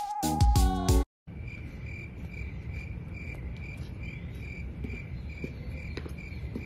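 Music cuts off about a second in, then an insect chirps steadily outdoors, even high chirps about two to three a second over a low background rumble.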